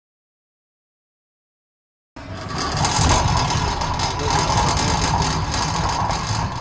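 Dead silence for about two seconds, then a steady, loud low rumble with hiss cuts in abruptly, like road or wind noise.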